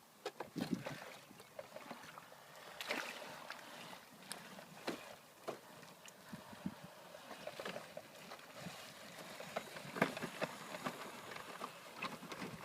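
Water splashing and sloshing in irregular bursts as a small off-road vehicle drives through a puddle, with no clear engine note.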